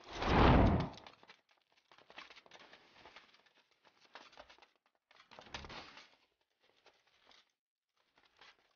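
A group of soldiers running, their footsteps pattering on a cave floor. A loud rush of noise about a second long comes at the start as they pass close, and a smaller swell comes about five and a half seconds in.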